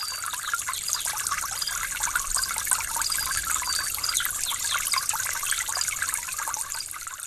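Running, trickling water, a dense steady splashing with many short high chirps through it. It swells up at the start and fades away at the end.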